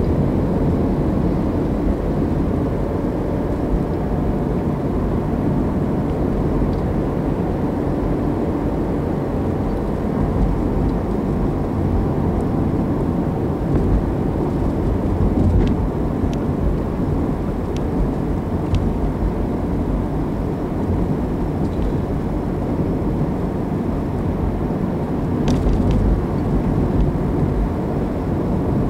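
Car driving at steady city speed, heard from inside the cabin: a steady low rumble of road and engine noise, with a couple of faint clicks.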